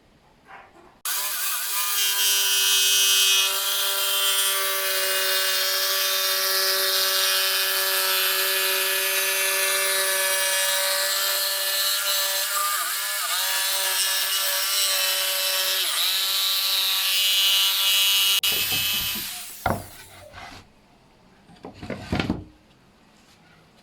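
Electric jigsaw cutting a curved shelf out of plywood. It starts about a second in, runs steadily with a couple of brief dips in pitch as the blade loads up, and stops after about seventeen seconds, followed by a few knocks from handling the wood.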